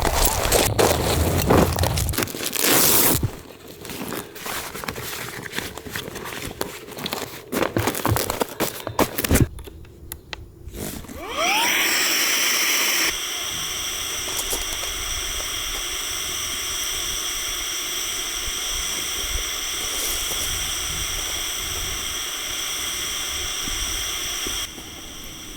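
Crinkling, scraping and clattering of fabric and gear being handled, then a short loud hiss and a steady whirring sound with a high whine that stops shortly before the end.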